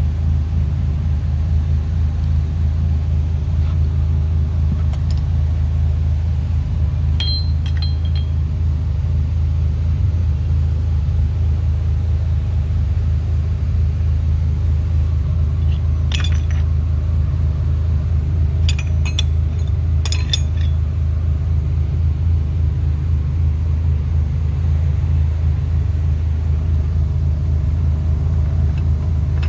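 Steady low rumble of a running car engine, with a few brief metallic clinks about seven seconds in and again around sixteen and twenty seconds in.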